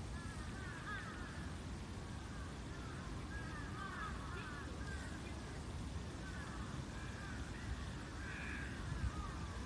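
Birds calling over and over in short, curving calls, over a steady low rumble.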